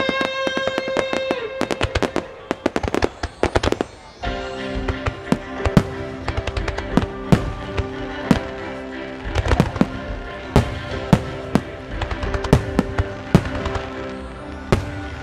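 Aerial firework shells and starmine bursts going off, with many sharp bangs over music: a quick run of bangs in the first four seconds, a brief lull, then bangs every half second or so through the rest.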